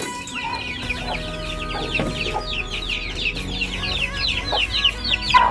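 A brood of chicks peeping on and on, many quick high falling cheeps overlapping, with a few light knocks in between.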